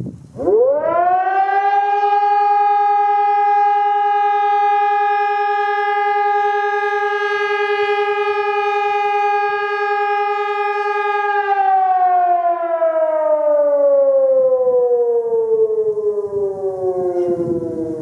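EPS 600 electronic civil-defence siren with horn loudspeakers sounding a test. Its tone rises quickly to a steady pitch about half a second in, holds for about eleven seconds, then slowly falls away over the last six seconds.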